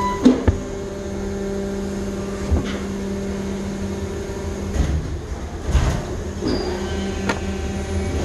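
Steady mechanical hum with a low rumble, from running machinery, broken by several short knocks and rustles as clothes in the bin are handled.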